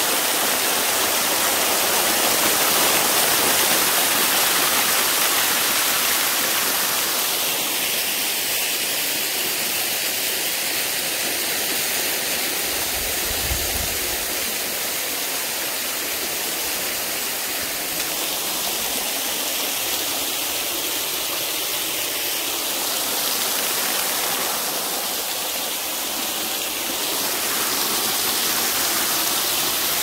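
Small waterfall pouring steadily over mossy rock and splashing into a pool. The rush of water shifts in tone a few times.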